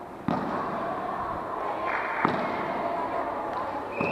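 Volleyball struck hard three times in a sports hall, sharp smacks about two seconds apart, over players' and spectators' chatter.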